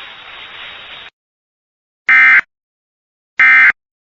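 Radio hiss that cuts off about a second in, then two short, loud bursts of Emergency Alert System digital data tones about a second apart. These are the end-of-message code that closes an alert.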